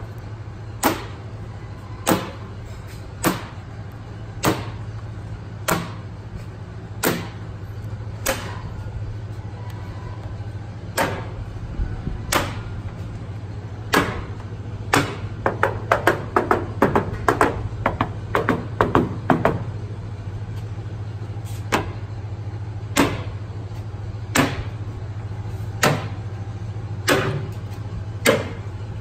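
A small magnet clicking against the steel body panels of a 1957 Chevrolet Bel Air wagon, snapping on and being pulled off about once a second, with a quick run of clicks around the middle: a magnet test for hidden body filler. A steady low hum runs underneath.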